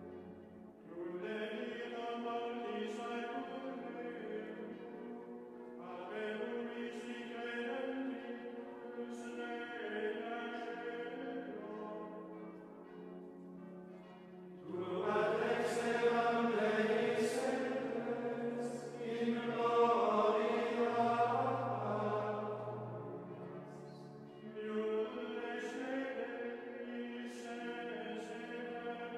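Benedictine monks' choir singing Gregorian chant: long, held sung phrases separated by short pauses, swelling louder for a passage around the middle.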